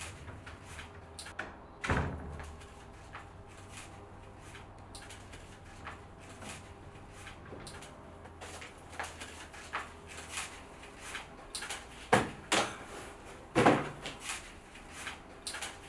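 Doors and cupboard drawers being opened and shut: scattered soft clicks and knocks, one louder knock about two seconds in, and several sharper knocks in the last few seconds.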